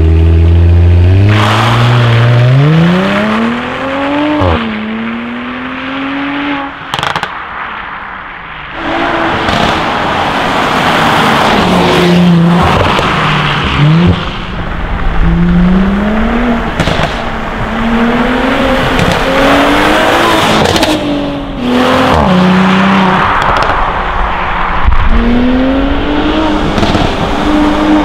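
Mercedes-Benz C450 AMG's twin-turbo 3.0-litre V6 through an Armytrix valved cat-back exhaust, accelerating hard: revs climb and drop back at each upshift, over and over. Short sharp crackles come in some of the gaps between pulls.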